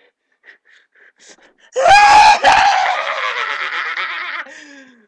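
A boy's loud, drawn-out scream, starting about two seconds in after a few faint breaths. It breaks off briefly, then trails away with falling pitch. It is his reaction to the burn of a spoonful of hot sauce.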